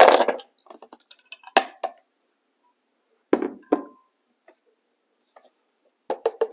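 Ice cubes clattering into a Vitamix blender jar, the pour ending about half a second in. A few separate clinks and knocks follow as containers are handled and set down.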